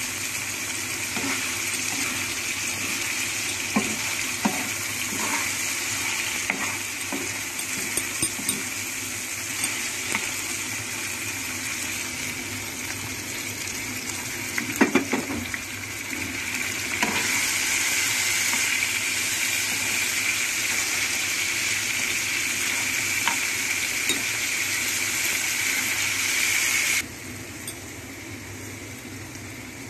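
Chicken frying in oil on a tawa (flat iron griddle), with a steady sizzle and a metal spatula scraping and clicking against the pan. About halfway through, a splash of water goes in and the sizzle gets louder. It drops off suddenly near the end.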